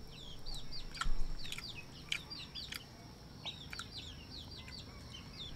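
Chicks peeping over and over in short, high, falling cheeps. A steady thin high tone runs underneath, and a few sharp clicks come through, the loudest about a second in.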